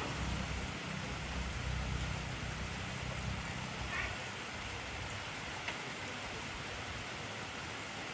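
Steady heavy rain, an even hiss of drops, with a low rumble underneath for the first few seconds that fades out, and a couple of faint drip ticks.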